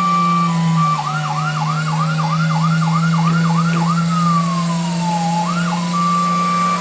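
Fire truck's electronic siren switching patterns: a steady tone gives way about a second in to a fast yelp of rising-and-falling sweeps, about three a second, then one slow falling wail and a last sweep before the steady tone returns. A steady low hum runs underneath.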